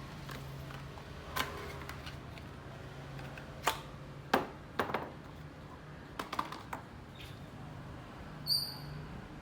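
Scattered sharp clicks and knocks of hands and tools on a microwave oven under repair, over a steady low hum, with one short high beep near the end.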